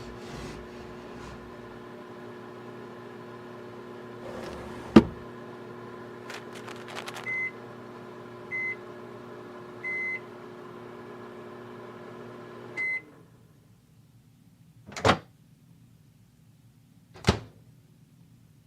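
Microwave oven running with a steady hum, a sharp loud click about five seconds in, then a series of short high beeps. The hum stops about 13 seconds in with a last beep, and two loud knocks follow.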